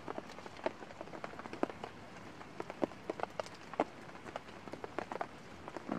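Rain falling in the forest: many irregular drops ticking and pattering over a steady light hiss.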